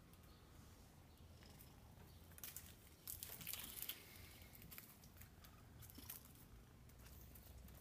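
Faint rustling and scuffling from an Exotic Shorthair kitten playing with a feather wand toy, its paws on wooden floorboards and the feathers swishing; a cluster of quick rustles about two and a half to four seconds in is the loudest part.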